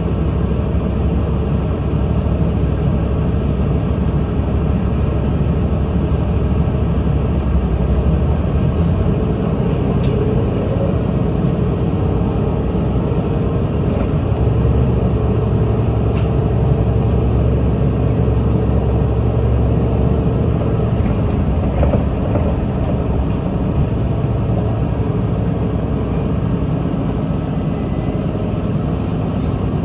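Nabi 40LFW hybrid transit bus with a Cummins ISL diesel and Allison EP40 hybrid drive, running with a steady low drone. A mid-pitched tone joins in about nine seconds in and drops away after about twenty seconds, with a few clicks along the way.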